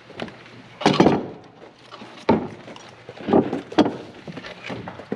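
Several loud thuds and clunks at uneven intervals, the loudest about a second in, over faint background noise.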